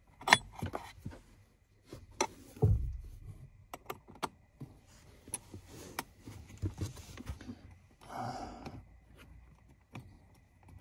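Small metal clicks and clinks of a small wrench working the nuts of an aftermarket gas-pedal spacer, with a dull thump about two and a half seconds in.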